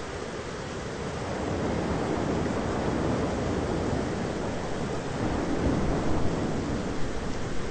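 Thunderstorm ambience of steady rain and wind noise, with a low rumble of thunder that swells over several seconds and peaks near the end.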